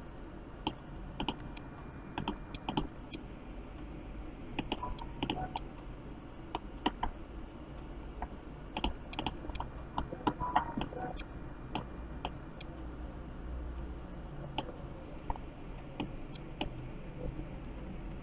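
Computer keyboard typing and mouse clicks: bursts of light, quick clicks in irregular clusters, thinning out near the end, over a faint steady hum.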